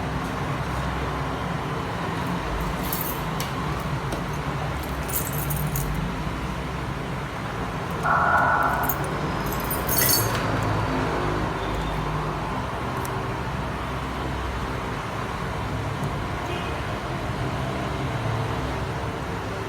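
Steady background rumble like distant road traffic, with a few small, sharp metallic clicks and taps from hand tools working on a phone, and a short buzz about eight seconds in.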